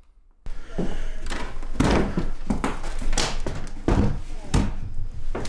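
Footsteps and knocking thumps on old bare wooden floorboards, about two a second, starting suddenly about half a second in.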